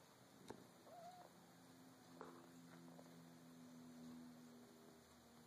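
A domestic tabby cat making a soft, short chirp about a second in, then a low, steady hum lasting about three seconds, with a few faint clicks.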